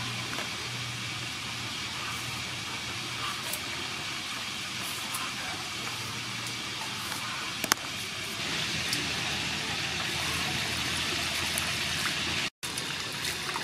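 A steady background hiss with a low hum and one sharp click about halfway, then from about eight seconds water pouring into a steel bowl of cucumbers and mint leaves. The sound cuts out briefly near the end.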